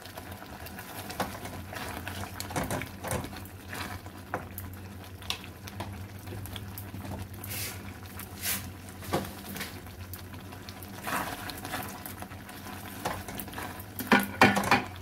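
A spoon stirring fried paneer, capsicum and onion into thick masala gravy in a kadai as it cooks: irregular soft scrapes and clicks, with a louder cluster of knocks near the end. A steady low hum runs underneath.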